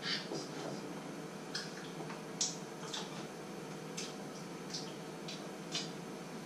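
About ten short, sharp clicks and smacks spread through, over a steady low hum: a knife tapping on a wooden cutting board at first, then the wet mouth sounds of chewing a bite of food.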